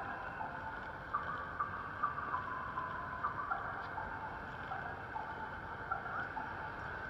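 Street ambience at a busy pedestrian crossing in the rain: a steady wash of noise from rain and wet traffic, with scattered short high tones and a few small clicks over it.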